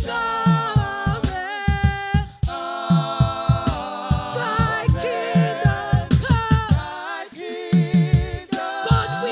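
Worship music: singing with vibrato and gliding held notes over a steady, repeating low beat.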